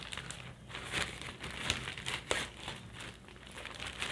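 Crinkly silver gift wrap rustling and crackling in the hands as a wrapped book is pulled out of it, in an irregular run of crinkles with a few sharper crackles.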